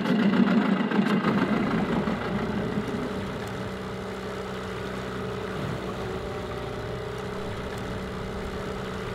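Small outboard motor on an inflatable dinghy running under way, a steady hum that is louder for the first couple of seconds, then settles to an even, quieter drone.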